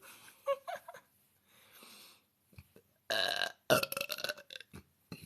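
A woman belching loudly: one long, rough burp starting about three seconds in and lasting over a second and a half, after a couple of seconds of faint small sounds.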